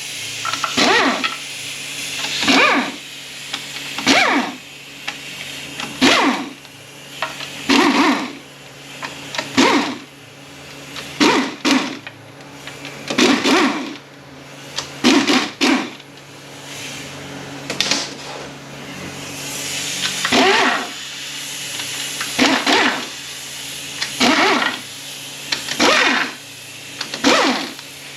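Air ratchet with a 10 mm socket running out the transmission pan bolts one after another: about fifteen short buzzing spins, each roughly half a second to a second long and one and a half to two seconds apart, some winding up gradually, over a steady low hum.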